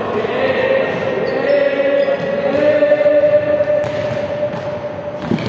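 Balls bouncing on a sports hall floor under a long, steady held tone, with a sharp thump near the end.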